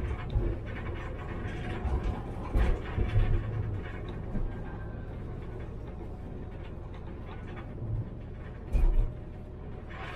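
Tram running along the line: a steady low rumble with heavy low thumps about two and a half seconds in, again just after, and near the end.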